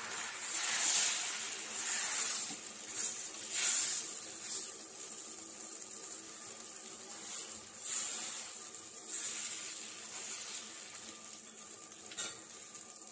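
Thin rice batter sizzling on a hot dosa tawa as it is poured and spread across the pan. The hiss swells and fades several times, then settles to a steadier, softer sizzle near the end.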